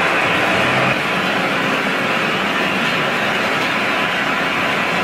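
Food-processing machinery running: a stainless-steel rotating drum and a plastic-flighted conveyor make a steady mechanical noise. A low hum under it drops away about a second in.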